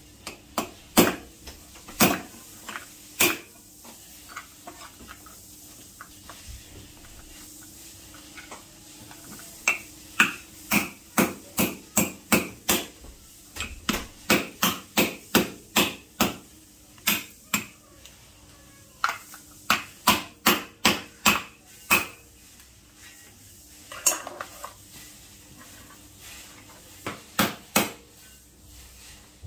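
Metal meat mallet striking mud crab claws and shells on a wooden cutting board, cracking them open. The blows come in runs, a few at first, then after a pause a long quick series of about two a second, and a few more near the end.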